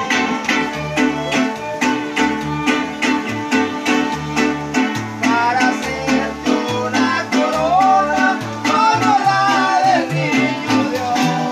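Small acoustic string band playing live: guitars strumming a steady rhythm over low bass notes, with a violin carrying a wavering melody that comes forward about halfway through.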